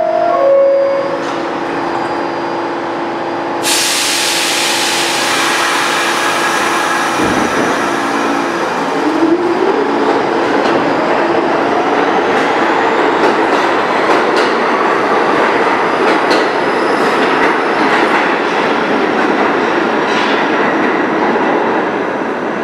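R46 subway train departing a station, heard from the platform. It opens with the last note of the falling two-tone door chime. About three and a half seconds in a loud hiss starts, then the traction motors whine rising in pitch as the train picks up speed and passes with wheels clattering on the rails. The sound eases off near the end as the last cars clear.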